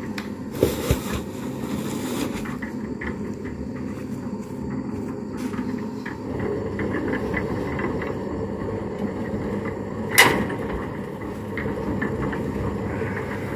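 Small drum concrete mixer running with a steady low rumble, with scattered light clicks and one sharp knock about ten seconds in.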